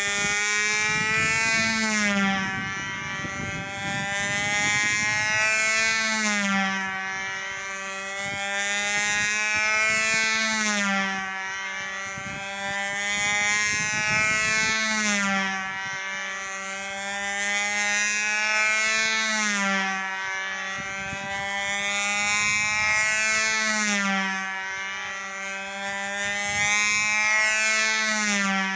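Fox .35 two-stroke glow engine of a scratch-built Veco Chief control-line model plane running steadily in flight. Its pitch and loudness rise and fall once a lap, about every four seconds, as the plane circles.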